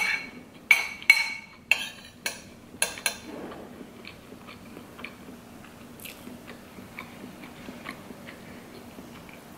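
Metal spoon clinking and scraping against a ceramic bowl while scooping paella rice: about six sharp, ringing clinks in the first three seconds, then quieter chewing with faint small clicks.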